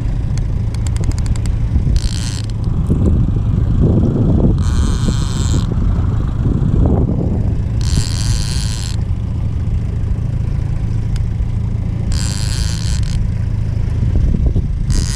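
Boat motor running steadily at trolling speed, a low hum. About every three to four seconds there is a hissing burst of about a second.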